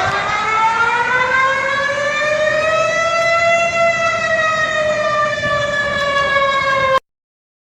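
Warning siren wailing: one pitched tone with overtones rises slowly for about three and a half seconds, then slowly falls, over a steady hiss. It cuts off abruptly near the end.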